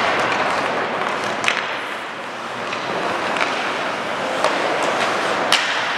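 Ice hockey play on a rink: a steady hiss of skates scraping the ice, broken by a handful of sharp clacks from sticks and puck.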